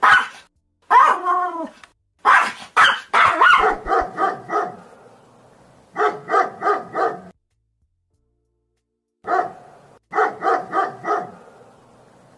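Dog barking in bursts. It starts with a single bark, then a longer bark that falls in pitch and a run of barks. After that come two quick volleys of about five rapid barks each, separated by pauses.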